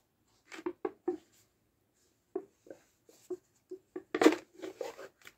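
Crunchy potato snack sticks being chewed close to the microphone: a series of short crunches, a few at first, then a quicker run with the loudest a little past four seconds in.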